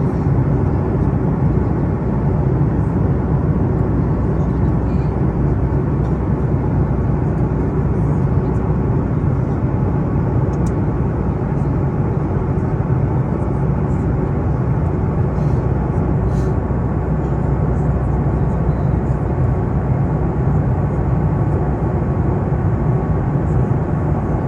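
Airplane engine noise: a steady, even, low drone that holds at one level throughout, with a faint steady tone above it.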